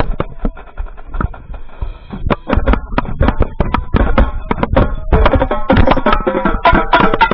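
Marching tenor drums (quads) played close up: fast stick strokes on the drum heads, with the rest of the marching band playing behind. The strokes are sparse and softer for the first couple of seconds, then dense from about two and a half seconds in, and the whole band grows louder and fuller about five seconds in.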